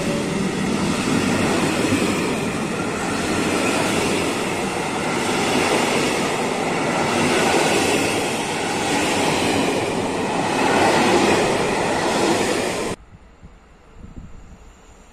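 Passenger train coaches rolling past close by: a loud, steady rush of wheel-on-rail noise. It cuts off abruptly about 13 seconds in, leaving only faint low sound.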